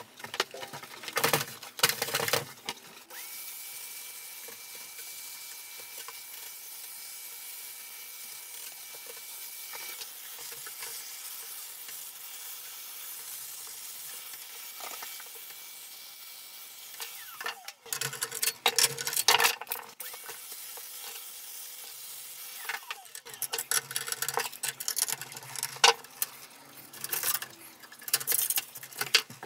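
Vacuum cleaner running with a steady hiss and a thin high whine, its brush nozzle working over the inside of an empty PC case. Bursts of clattering knocks and scraping break in at the start, a little past halfway, and through the last few seconds.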